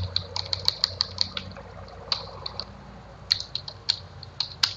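Keystrokes on a computer keyboard: irregular clicks in short runs with brief pauses between them, as a command is typed.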